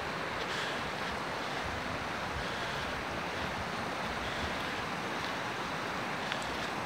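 Steady rushing of a mountain stream flowing over rocks, an even, unbroken wash of water noise.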